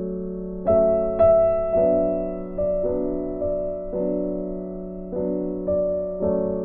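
Background piano music: slow, soft notes and chords, each struck and then fading, over a held low note.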